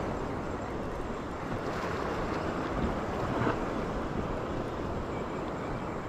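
Steady wind buffeting the microphone over the wash of sea surf: an even rushing noise without a break.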